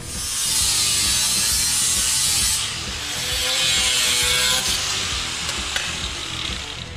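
Angle grinder with a cut-off wheel cutting through sheet steel: a loud, hissing screech whose pitch wavers with the load. It eases briefly about two and a half seconds in, bears down again, and tapers off near the end.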